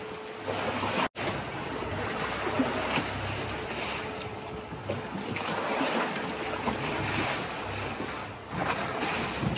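Sea and wind noise aboard a sailing catamaran under way: waves washing against the hulls and wind buffeting the microphone.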